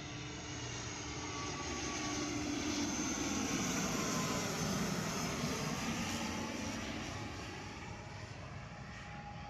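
Airliner passing low overhead on its landing approach: the engine noise swells to a peak about four to five seconds in and then fades away, with a whine that drops in pitch as it goes by.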